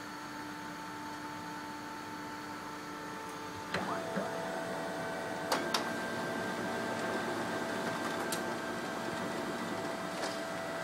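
Desktop printer running as it prints a page: a steady whir, then about four seconds in a click and a change to a louder mechanical running sound as the paper feeds, with a few sharp clicks along the way.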